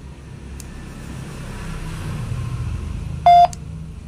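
A low rumble swells and then eases. About three seconds in comes one short, loud electronic beep from a handheld walkie-talkie.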